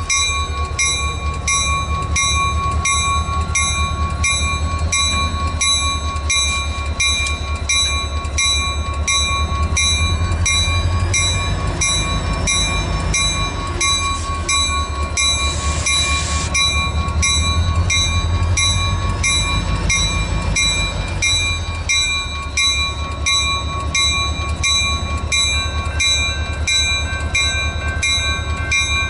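Grade-crossing warning bell ringing in a steady, regular rhythm over the low rumble of diesel switcher locomotives, an EMD SW1500 among them, crawling through the crossing.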